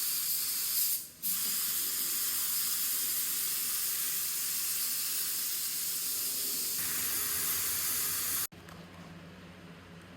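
Compressed-air paint spray gun spraying, a steady loud hiss that drops out briefly about a second in as the trigger is let off, then stops suddenly about eight and a half seconds in.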